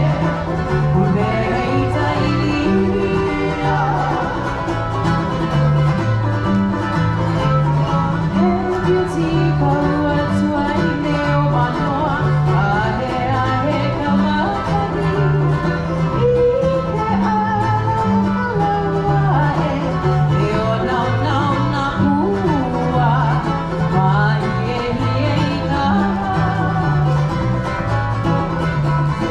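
Hawaiian hula music: plucked and strummed string instruments over a steady bass line that alternates between notes, with a singer's voice.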